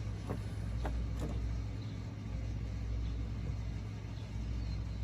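A steady low mechanical hum, with a few faint clicks and knocks.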